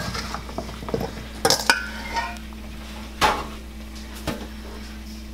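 Metal spoon tossing oiled cauliflower florets in a stainless steel mixing bowl: soft scraping and rustling with several sharp, irregular clinks of spoon on bowl.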